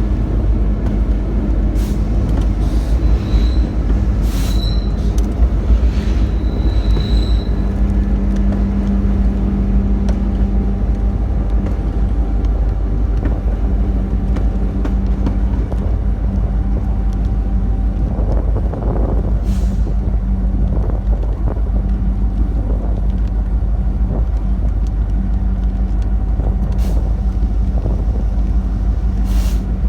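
Steady low rumble of a moving vehicle, with a short high squeal a few times in the first several seconds.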